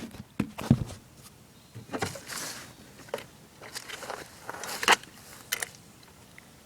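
Echo SRM-210 two-stroke string trimmer being handled and readied for starting: scattered clicks, knocks and short scrapes, with no engine running.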